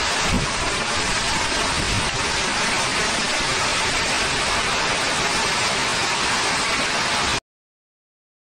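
Violent storm of heavy rain and hail in strong wind, a loud, steady rush of noise with some low rumbling. It cuts off suddenly about seven seconds in.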